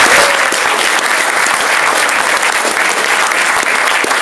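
Audience of guests applauding, loud and steady.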